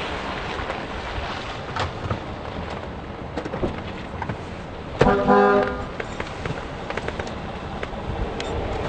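Steady road noise inside a moving car on a wet road, with a car horn sounding once, under a second long, about five seconds in.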